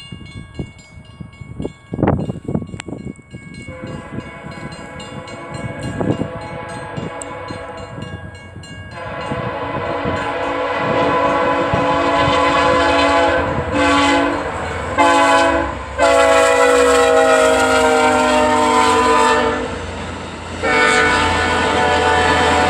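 VIA Rail passenger train's diesel locomotive horn sounding a series of long and short blasts. It is faint at first and gets much louder from about nine seconds in as the train draws near, over the growing rumble of the train passing. A couple of sharp knocks come about two seconds in.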